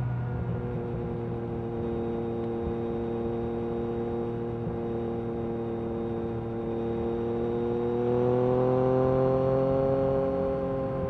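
Yamaha MT-09 SP's three-cylinder engine through an Akrapovic Carbon Racing exhaust, running at steady revs while cruising. The pitch climbs a little about eight seconds in, then eases off.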